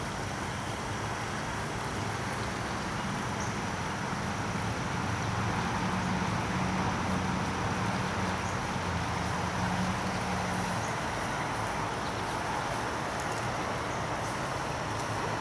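A distant vehicle's low engine hum over steady outdoor background noise, growing louder around the middle and fading again.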